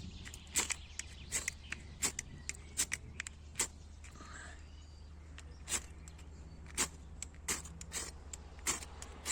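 A steel striker scraping down a ferrocerium fire-starter rod in repeated short, sharp strokes, a dozen or so at irregular intervals.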